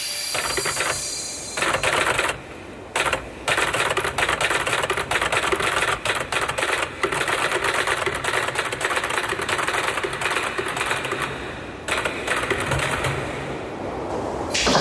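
Rapid typewriter clacking in long runs with a few short pauses, over a faint low steady hum.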